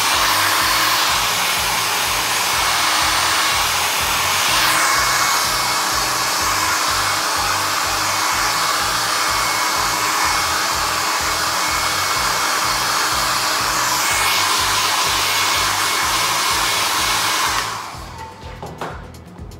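Handheld hair dryer blowing steadily while drying hair, its sound shifting about five seconds in and again near fourteen seconds, then switching off shortly before the end. Background music with a steady beat runs underneath.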